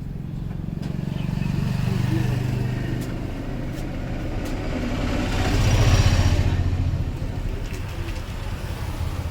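Motor vehicle engine running as it passes close by, growing louder to a peak about six seconds in and then fading, over a background of road traffic.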